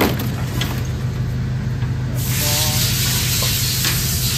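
Aluminium bar stock clanks as it is pulled from a pile, with a sharp knock at the start and a few lighter ones after it, over the steady hum of the bandsaw's running hydraulic unit. About two seconds in, a loud steady hiss starts up and keeps going.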